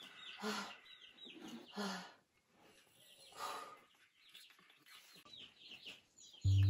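Small birds chirping over and over in the background, with a few faint lower calls in between. A tune on a mallet instrument starts near the end.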